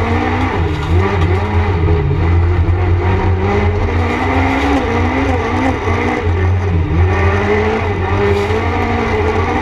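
Peugeot 206 race car's engine heard from inside the cockpit at racing speed, its revs dipping and climbing again several times as the driver shifts and lifts, over a steady low rumble.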